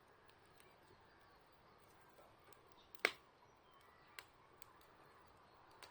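Wood fire crackling quietly: one sharp pop about halfway through, a smaller pop about a second later, and a few faint ticks over a soft hiss.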